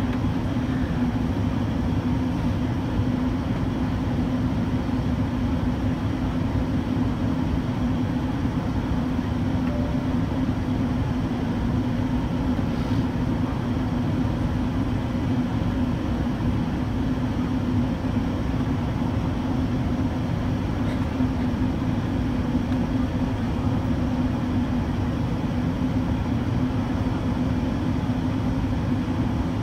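Steady cabin noise inside an Airbus A380-800 on its descent: engine drone and rushing airflow, with a steady low hum.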